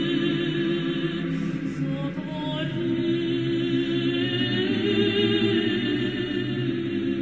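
Choir singing Eastern Orthodox chant a cappella, holding sustained chords that move to new notes every few seconds.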